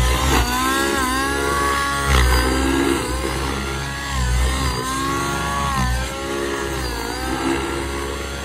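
MSH Protos Nitro radio-controlled helicopter's two-stroke glow engine and rotor in flight. The engine note dips and climbs back several times as the helicopter manoeuvres, over a low rotor rumble.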